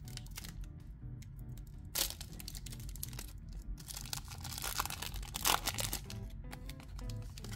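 Foil wrapper of a Pokémon trading-card booster pack being torn open and crinkled by hand. There is a short rip about two seconds in, then longer tearing and crinkling from about four to six seconds in, over background music.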